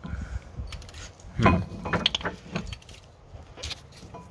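New Bosch brake pad's steel backing plate clicking and scraping against the Lotus Elise front brake caliper and disc as it is forced into place, with one louder burst about a second and a half in. The pad will not go in: it is too thick for the gap left by the fully compressed caliper pistons.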